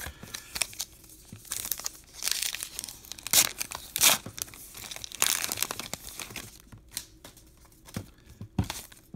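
A baseball card pack's plastic wrapper being torn open and crinkled, in a run of rustling tears. Near the end come a few light clicks as the cards inside are handled.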